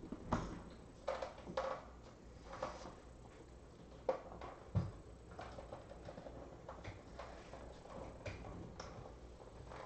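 Scattered light clicks, taps and rustles of trading card boxes and packs being handled on a table, with a dull thump about five seconds in.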